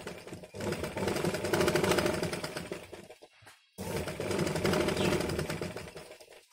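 Domestic sewing machine running at speed, its needle stitching a gathered saree-border frill onto a blouse neckline. It sews in two runs, pausing briefly a little past halfway while the fabric is turned.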